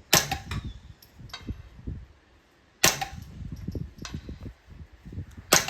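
Three suppressed .22LR shots from a Smith & Wesson M&P 15-22 semi-automatic rifle firing CCI standard-velocity ammunition, spaced a little under three seconds apart. A fainter click follows a little over a second after each of the first two shots.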